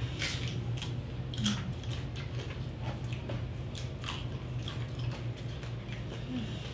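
Close-up wet chewing and biting of roast pork (lechon), with irregular short smacking clicks, over a low steady hum.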